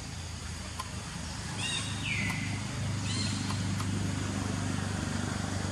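A motor engine running steadily with a low hum, which grows louder about halfway through. Over it a bird gives a few short chirps and one downward-sweeping call.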